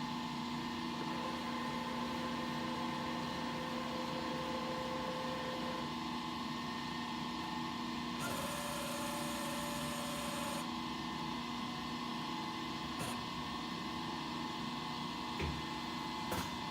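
SCM T130 CNC router standing under power with a steady electrical hum, its axis drives giving a faint whine during two moves into position, the first lasting about five seconds and the second, higher and with a hiss, a couple of seconds later. The spindle is not yet running.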